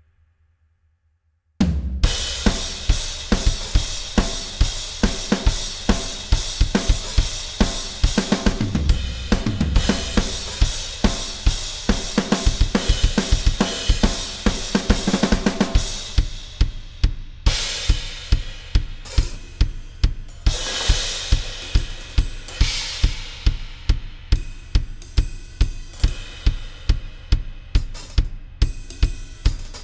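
Drum kit played on its own: a brief silence, then about a second and a half in a fast, steady beat of bass drum, snare and hi-hat under washing cymbals; partway through, the cymbal wash thins and the pattern opens out.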